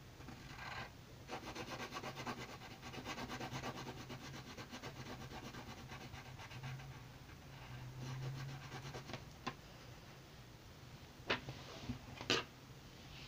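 A pencil's rubber eraser rubbed quickly back and forth on drawing paper, erasing pencil lines in a long fast run of strokes, then more lightly. Two sharp taps near the end.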